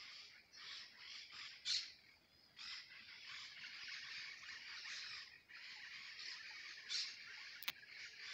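Birds chirping in the trees in a dense, faint chorus that comes and goes in stretches, with two louder calls about two seconds in and near seven seconds, and a single sharp click near the end.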